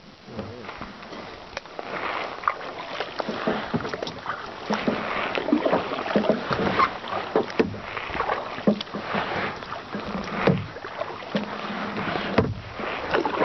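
Water splashing and lapping against a plastic kayak's hull, in irregular splashes over a steady wash of moving water.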